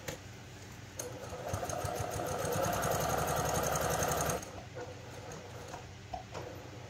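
Brother PQ1500SL straight-stitch sewing machine topstitching along the edge of a cloth pad. A fast, even run of stitches starts about a second in and stops suddenly a little after four seconds, followed by a few light clicks.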